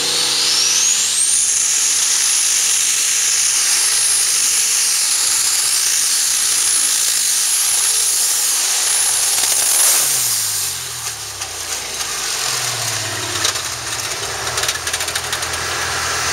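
Light Super Stock pulling tractor's turbocharged diesel engine under full throttle, its turbocharger whine climbing sharply in the first second and a half and then held high for several seconds. About ten seconds in the throttle is cut: the whine stops and the engine falls back to a low idle.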